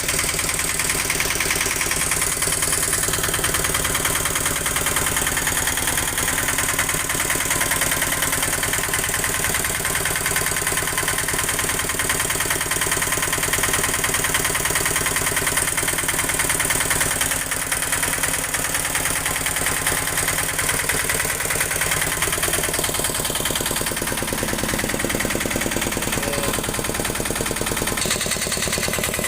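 An engine running at a steady idle, with rapid, even firing pulses; its tone shifts slightly about three-quarters of the way through.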